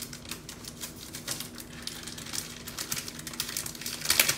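Trading cards and plastic packaging being handled: a string of small crinkles, taps and clicks, with a louder rustle near the end.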